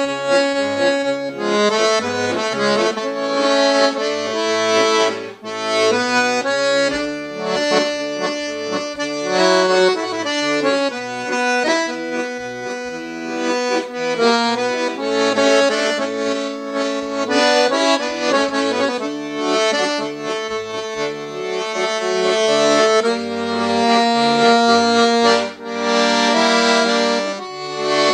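Dino Baffetti piano accordion playing a tango: a right-hand melody in held chords over left-hand bass notes, with brief breaks between phrases about five seconds in and near the end.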